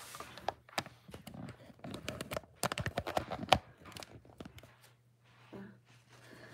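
Handling noise as the camera is adjusted close to the microphone: a run of quick clicks, taps and rustles, thickest and loudest around three and a half seconds in, then a few scattered ticks.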